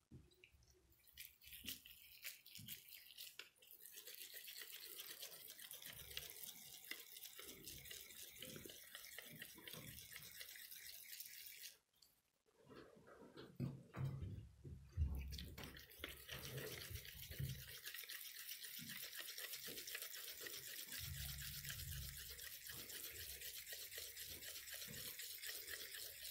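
Gloved palms rubbing together as they roll small balls of bulgur dough: a faint, steady scrubbing hiss that breaks off briefly about halfway through, with a few dull low bumps soon after the break.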